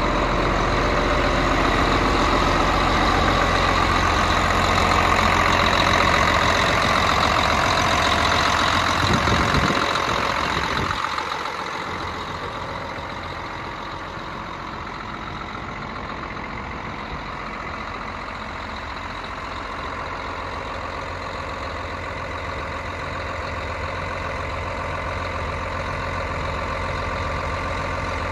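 Caterpillar Challenger rubber-track tractor's diesel engine idling steadily. It is loudest for the first ten seconds or so, then drops to a lower, steady level.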